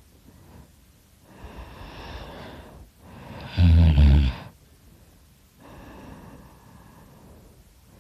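A sleeping man snoring loudly: a quieter breath, then one loud, low-pitched snore about halfway through, then another quieter breath.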